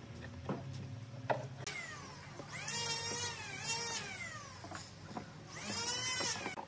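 A few light knocks of pine boards being set down on a wooden workbench. Then a rooster crows twice, the first crow long and rising and falling in pitch, the second shorter.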